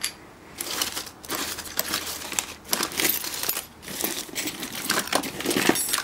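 Loose small metal IBM typewriter parts clinking and rattling against each other as a hand rummages through a heap of them, with some crinkling of small plastic parts bags. The clatter is irregular and goes on almost without a break.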